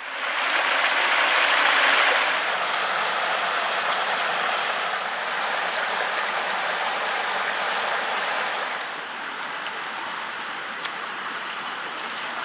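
Shallow spring-fed stream running over rocks: a steady rush of flowing water, a little quieter from about nine seconds in.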